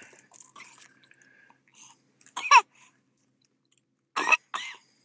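Sleepy baby fussing: one short cry that rises in pitch about halfway through, then two brief coughing cries near the end.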